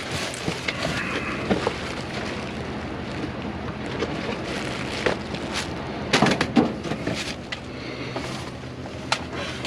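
Items being handled and shifted about in a dumpster: scattered short knocks, clicks and rustles, a cluster of them a little past the middle, over a steady low hum and wind noise.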